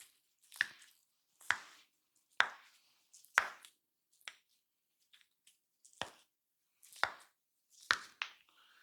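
A barber's hands striking the head and shoulders in a percussive head massage: sharp slaps about once a second, with a few lighter taps in a short lull midway.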